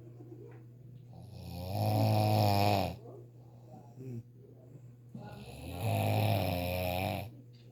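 A person snoring through the nose with the mouth closed: two long snores about four seconds apart, each swelling up and then cutting off.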